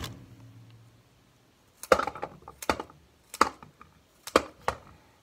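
Raw carrots being cut into pieces with a hand tool: a series of about seven crisp cracks and snaps, starting about two seconds in.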